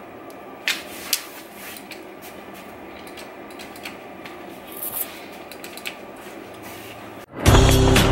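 Quiet room tone with a couple of sharp handling clicks about a second in and a brief rustle around the middle. Near the end loud background music with a steady beat cuts in abruptly.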